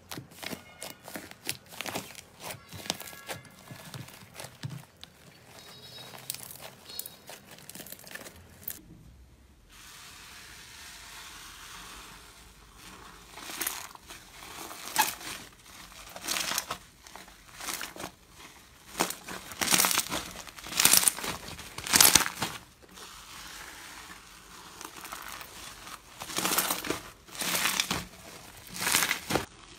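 Paper-wrapped slime pressed under the fingers, making many small crinkling clicks. About nine seconds in it changes to fluffy slime in a plastic tub being pulled apart by hand and stirred with a wooden stick, in loud bursts a second or so apart.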